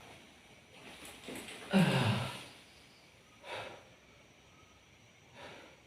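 A man's heavy sigh, a voiced exhale falling in pitch, about two seconds in, followed by two short breaths.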